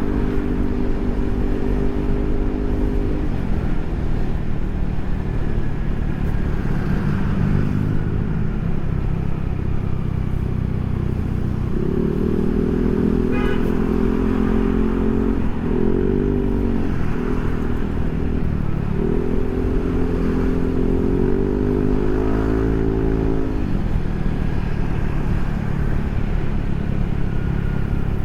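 Yamaha NMAX scooter's single-cylinder engine running through an aftermarket Proliner SR Neo Silent muffler, its engine speed rising and falling several times in the second half.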